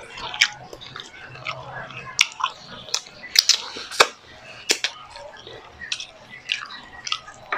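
Close wet chewing and lip smacking of a person eating grilled milkfish by hand, with sharp, irregular mouth clicks about twice a second as fingers go to the mouth.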